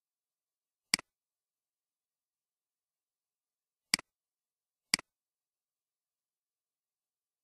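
Three computer mouse clicks, each a quick press-and-release tick: one about a second in, then two a second apart near the middle, with silence between them.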